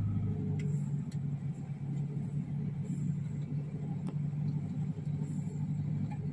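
Steady low rumble of a vehicle's engine and tyres heard from inside the cabin as it rolls slowly along a dirt road, with a few faint ticks.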